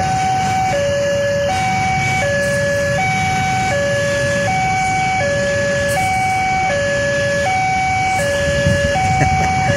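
Railway level-crossing warning alarm sounding: an electronic two-tone chime, a low and a higher tone taking turns about every three quarters of a second, with a low rumble underneath.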